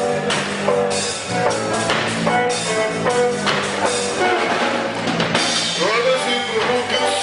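Rock band playing an instrumental passage with drum kit, bass and electric guitars, the drums hitting in a steady beat.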